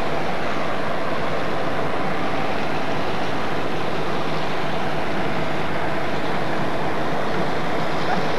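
A harbor tug's diesel engine running steadily while it works past under tow load, its propeller churning the water.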